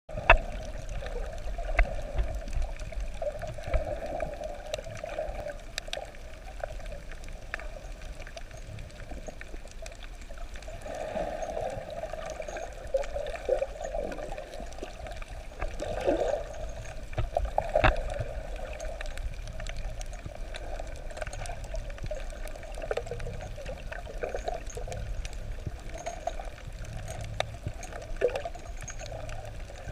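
Underwater ambience picked up by a camera held below the surface: a muffled, steady wash of water with gurgling, and scattered sharp clicks and knocks.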